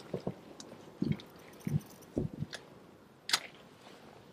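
Short muffled thumps and rustles of handling close to the microphone, with one sharp click a little after three seconds in.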